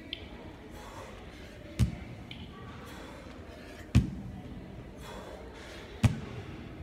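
Hex dumbbell hitting the gym floor at the bottom of each one-arm dumbbell snatch: three thuds about two seconds apart.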